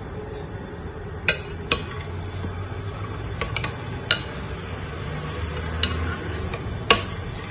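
Metal spoon stirring sticky rice in an amber glass pot, clinking sharply against the glass about seven times at irregular moments, the loudest clink near the end, over a low steady rumble.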